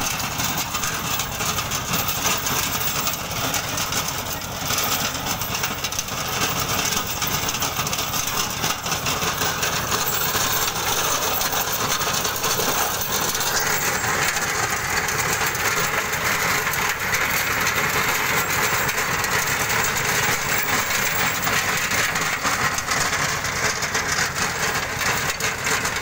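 Captain mini tractor's diesel engine running steadily under load while its PTO-driven side-shift rotavator churns the soil. The noise grows brighter and harsher about halfway through.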